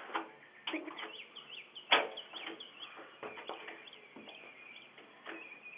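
Small birds chirping in short repeated calls, heard through a Ring video doorbell's microphone, with a few sharp clicks or knocks; the loudest knock comes about two seconds in.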